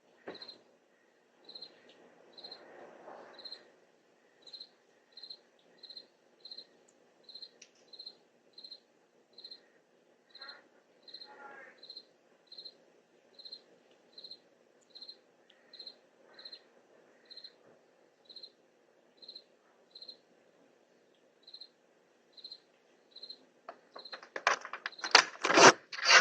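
Crickets chirping in a steady rhythm, about one and a half chirps a second, picked up by a doorbell camera's microphone. Near the end a much louder series of sharp, rapid pulses begins.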